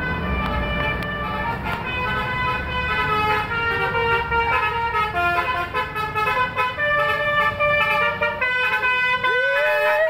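Bus 'telolet' horn: a set of electrically switched air horns playing a jingle of changing notes, over the low rumble of the bus and traffic. Near the end the horn slides up in pitch like a siren.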